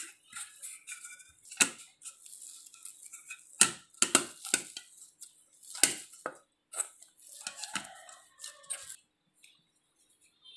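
Hands kneading rice-flour dough in a stainless steel bowl: irregular knocks and scrapes of dough and fingers against the metal bowl, stopping about nine seconds in.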